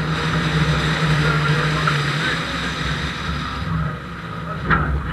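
Renault Clio RS rally car engine running at steady revs, then easing off about three and a half seconds in as the car slows for a corner. A single sharp knock near the end.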